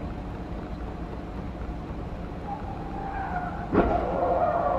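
Tyres squealing under hard braking, then a sudden crash of vehicles colliding near the end, with squealing carrying on briefly after the impact. A steady hum of engine and road noise runs underneath.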